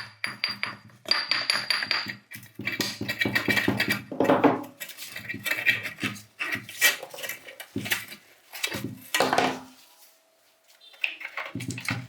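Metal tools and parts of a rusted bench grinder clinking, knocking and scraping as it is taken apart. There is a run of rapid, even clicking in the first two seconds, then irregular clanks and scrapes.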